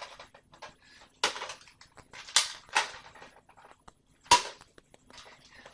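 Four sharp pistol-like shots, each a short crack with a quick tail, irregularly spaced about one to one and a half seconds apart.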